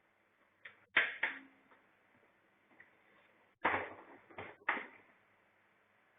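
Knocks and clatter from handling the highchair's parts and packaging during unboxing: a few sharp knocks about a second in, then a louder cluster of three or four knocks between about three and a half and five seconds.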